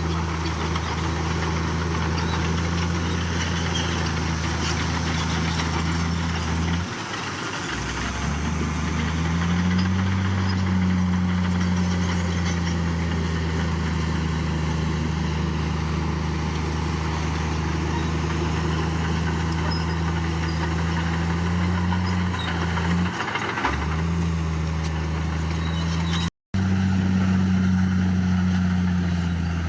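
Bulldozer's diesel engine running steadily under work. It drops briefly about seven seconds in, then revs back up to a higher pitch, dips again near the end, and cuts out for an instant just after.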